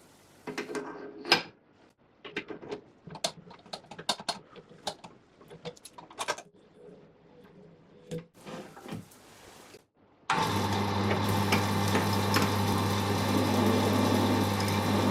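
Metal clicks and clinks as a workpiece is fitted and tightened in a lathe's three-jaw chuck. About ten seconds in, the wood lathe starts up suddenly and runs with a steady hum.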